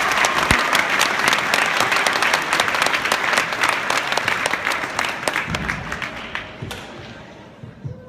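Crowd applauding, a dense clatter of many hands clapping that thins out and fades away over the last few seconds.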